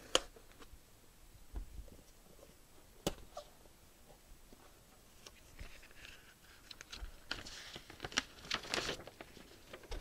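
Cardboard mailer box being slit open with a knife and its lid lifted: a sharp click at the start, another about three seconds in, then scattered scraping and rustling of cardboard, busiest near the end.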